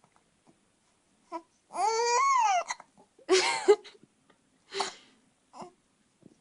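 Hiccups, with a whiny cry of about a second, rising then falling in pitch, about two seconds in, followed by a harsher cry and a couple more short hiccup sounds.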